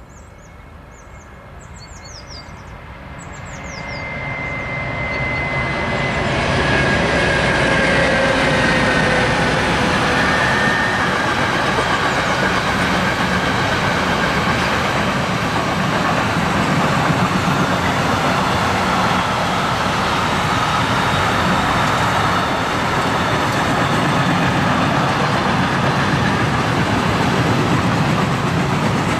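A freight train of intermodal wagons passing. It builds over the first few seconds, with a faint whine that falls slightly in pitch as the locomotive goes by. It then settles into a steady rumble and clatter of the wagons rolling past. Birds chirp at the start.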